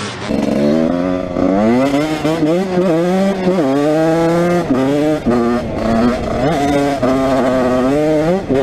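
Dirt bike engine revving hard and shifting up through the gears, its pitch climbing and then dropping back sharply several times. A rushing noise runs over it.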